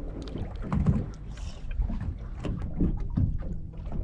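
Small waves lapping and knocking irregularly against the hull of an anchored small boat, over a low wind rumble on the microphone.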